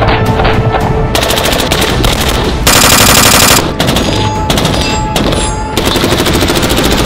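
SIG Sauer MCX-Spear rifle firing rapid strings of shots, with a louder, denser run near the middle.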